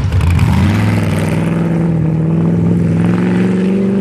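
Off-road race vehicle's engine under acceleration: its pitch climbs sharply about half a second in, then holds high and keeps rising slowly.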